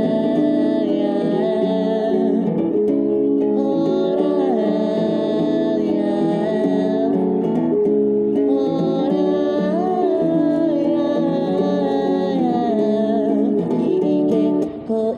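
A man singing a Japanese song while playing an acoustic guitar, with a short break near the end.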